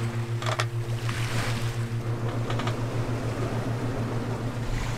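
A sailboat under sail at sea: water rushing along the hull with wind noise, over a steady low hum that pulses several times a second. Two short clicks, about half a second in and again about two and a half seconds in.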